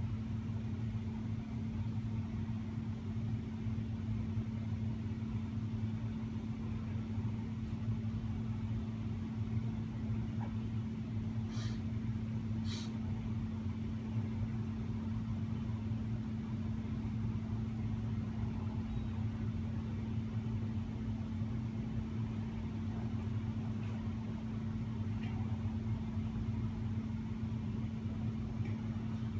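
A steady low mechanical hum, unchanging throughout, with two short ticks about a second apart near the middle.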